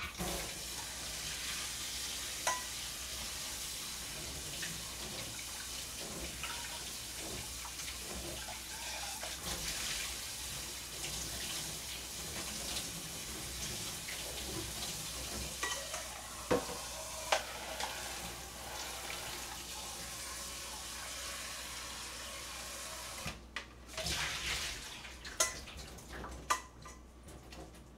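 Kitchen tap running steadily over a pot of cooked buckwheat noodles as they are rinsed in cold water. The water stops about five seconds before the end, followed by a few knocks of the pot.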